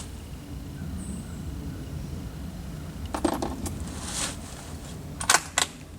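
Metallic clicks and clinks of a rifle and its brass cartridges being handled. A cluster of clicks comes about halfway through, then two sharper clicks near the end.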